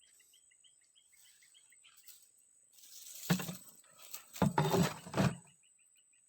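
Faint, rapid outdoor chirping in the first two seconds, then louder bursts of rustling and knocking about three seconds in and again from about four and a half to five and a half seconds.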